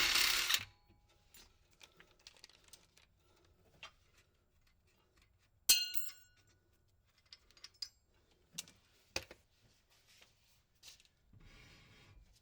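Hand tools working on metal under a car: a loud noisy burst that stops about a second in, then scattered clicks and knocks, one sharp ringing metal clank about six seconds in, and a short rasping stretch near the end.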